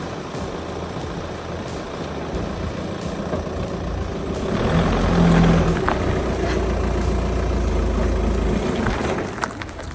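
Audi A3 8P diesel engine running with a steady low drone, which builds about four and a half seconds in and then eases off near the end. A few sharp clicks come near the end.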